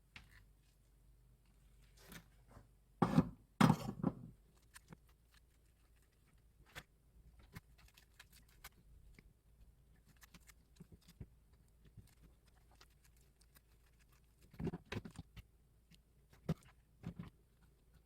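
Irregular knocks, clicks and clatter of fan parts and tools being handled, loudest in a cluster a few seconds in and again near the end, with scattered light ticks between.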